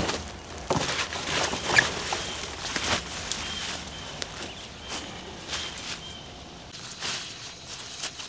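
Corn husks rustling and crackling in irregular handfuls as they are gathered and laid around plants as mulch, over a steady high insect whine.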